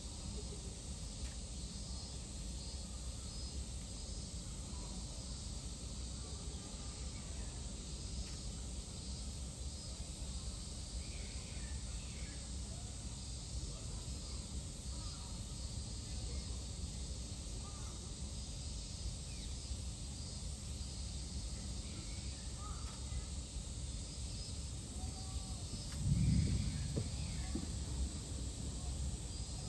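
Outdoor ambience: a steady low rumble and a faint high hiss, with scattered faint bird calls, likely crows cawing. A short low thud comes about 26 seconds in.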